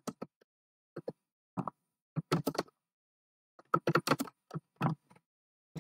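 Typing on a computer keyboard: irregular key clicks in short bursts with gaps between them.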